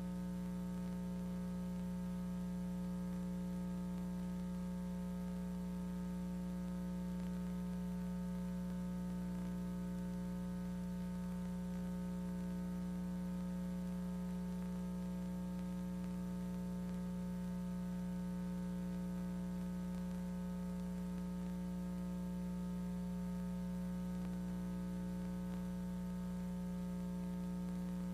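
Steady electrical mains hum: a low drone with a ladder of fainter, higher steady tones above it, and no other sound.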